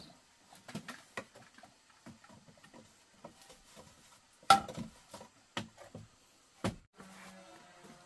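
Scattered light knocks and clicks, with a sharp louder knock about four and a half seconds in and another near seven seconds.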